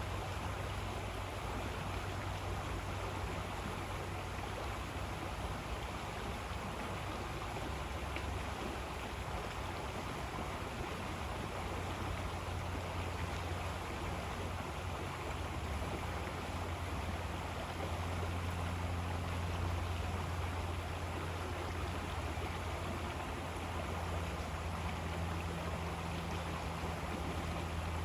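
River water flowing, a steady continuous rush with a low rumble underneath.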